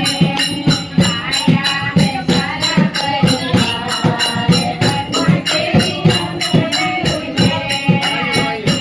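Kumaoni folk haldi song (badhai geet): singing over a steady drum beat with jingling percussion.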